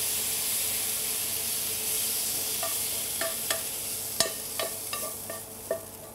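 Hot frying pan of sautéed pork liver still sizzling with a steady hiss that slowly fades, while a metal spoon scrapes the liver into a blender jar. From about halfway in come several sharp, ringing taps of the spoon against the pan and jar, the loudest a little past the middle.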